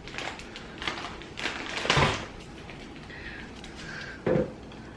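Crackling and rustling of a plastic snack bag and the dry, puffy potato snacks inside it being handled, with a louder crackle about two seconds in and another just after four seconds.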